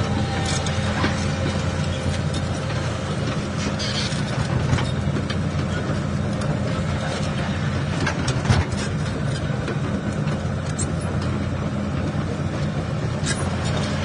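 Heavy construction-machine diesel engine running steadily at a low, even hum, with scattered light clicks and one sharper knock about eight and a half seconds in.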